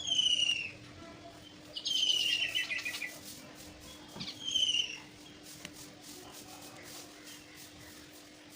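Birds calling: three bursts of clear, falling whistled notes in the first five seconds, the middle one a rapid descending trill, then only faint chirps. A steady low hum runs underneath.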